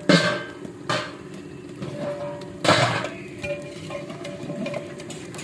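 Metal lids and a long metal ladle clanking against large cooking pots: three sharp clangs with a short ring, near the start, about a second in and just before three seconds, between quieter scraping and stirring.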